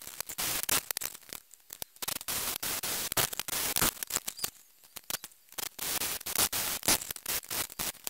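Wire-feed welder arc crackling in a run of short bursts with brief pauses between them: tack-welding steel casters onto the stand's legs.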